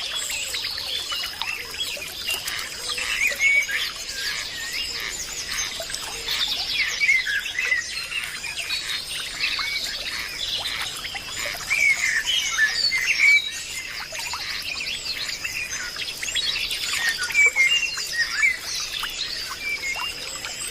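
Many birds chirping and calling together in a busy chorus of short, quick notes, over a steady high thin whine.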